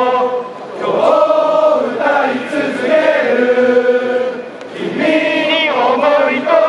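Large crowd of football supporters singing a new chant together in unison as they rehearse it, in long held melodic lines with short breaks between phrases, about half a second in and again about four and a half seconds in.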